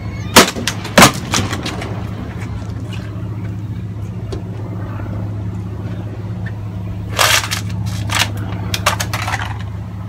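Sharp cracks of a katana blade striking a plastic water bottle set on a wooden post. There are two loud strikes about half a second apart near the start, then a quick cluster of several more about three-quarters of the way through, all over a steady low hum.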